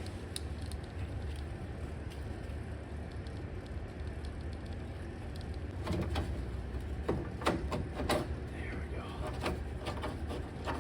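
Scattered light metal clicks and knocks of hand work on a car door's latch mechanism, pulley and cable, most of them in the second half, over a steady low hum.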